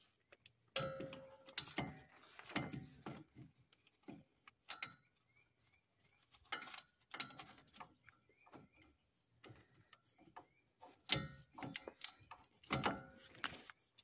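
Scattered sharp metallic clicks and clinks with a short ring, from hands and tools working on a truck's front wheel hub and steering knuckle, in clusters about a second in, near the middle and toward the end.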